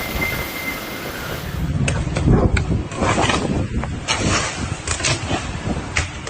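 Storm wind buffeting the microphone with a rushing, rumbling noise. A stronger gusting stretch with several sharp knocks begins about two seconds in.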